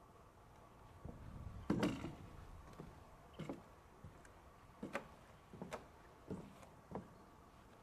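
A series of short knocks, irregular and about one a second, the loudest about two seconds in, over a faint steady hum.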